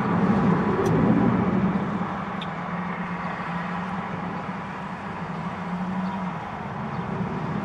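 Aircraft engine droning overhead, louder over the first couple of seconds, then steady.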